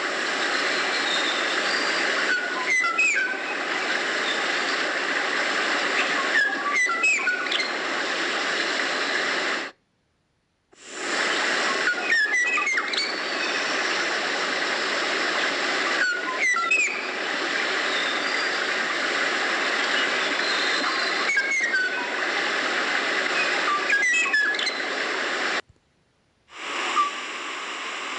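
Kauaʻi ʻōʻō calls: short whistled notes, sharply rising and falling, repeated about every four to five seconds over a steady hiss. The sound cuts out abruptly for about a second twice, as if separate recording takes were joined.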